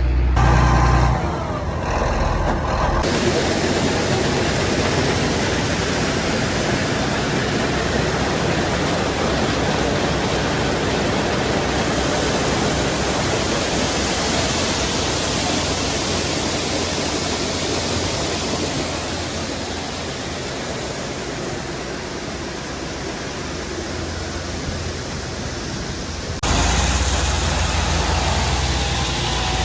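Heavy diesel farm machinery running under a steady rushing noise. A deep engine rumble is strongest at the start and returns abruptly near the end.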